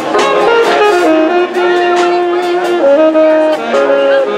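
Jazz music with held horn notes moving between pitches over a steady beat.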